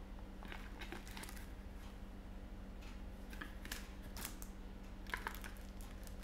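Faint, scattered clicks and light rattles of small fragrance bottles and sample vials being handled and sorted in a cardboard box, over a steady low hum.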